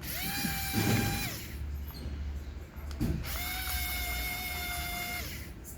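A small power-tool motor, like a drill or electric screwdriver, spinning up, running at a steady whine and winding down, twice. The second run is longer, and a brief knock comes just before it.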